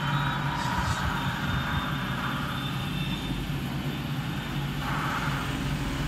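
Steady low machine hum in the background, with faint rustling and handling noises near the start and again about five seconds in.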